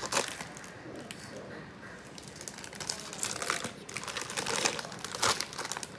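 Metal-foil mystery bag crinkling and crackling as it is handled and worked open, in irregular bursts that grow busier and louder in the second half.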